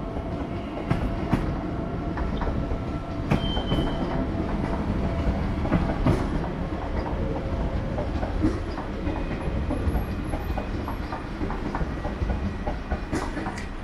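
Passenger trains rolling slowly over the station approach tracks: a steady low rumble with irregular wheel clicks over rail joints and points, and a brief high wheel squeal about three seconds in.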